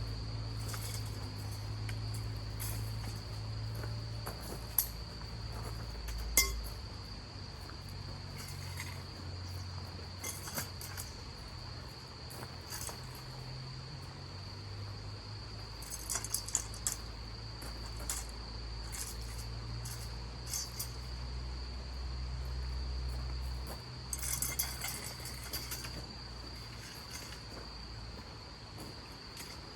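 Crickets trilling as one steady high-pitched tone, with a low rumble underneath. Scattered light clinks sound on top, a sharp one about five seconds in, another about six seconds in, and small clusters past the middle and near the end.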